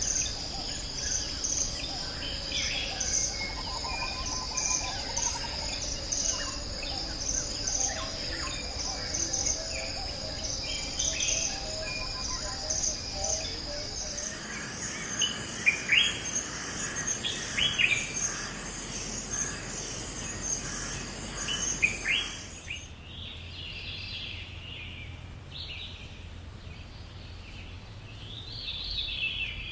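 Forest birds calling and chirping over a steady, high-pitched insect chorus, with several loud, quick rising chirps in the middle. The insect sound cuts off suddenly after about twenty-three seconds, leaving scattered softer bird calls.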